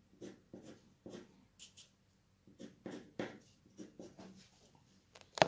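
Short scratchy colored-pencil strokes on paper over oil pastel, about three a second, with a brief pause about two seconds in. A single sharp click near the end.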